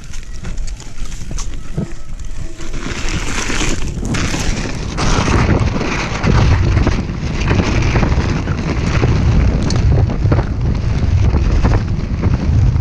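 Wind buffeting a helmet camera's microphone on a fast downhill mountain-bike run, mixed with tyres rumbling over dirt and the bike rattling and knocking over bumps. The rush gets louder and deeper about five seconds in.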